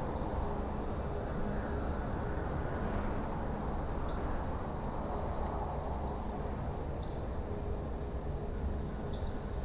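Steady low rumbling background noise with several faint, short high chirps scattered through it.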